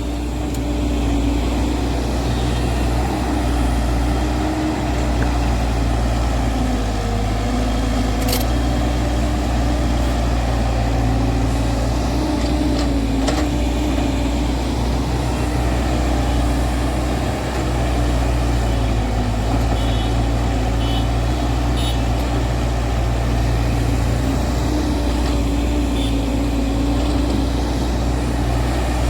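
JCB JS140 excavator's diesel engine running steadily under working load, its pitch dipping and rising slightly, with a couple of sharp clicks or knocks, one about eight seconds in.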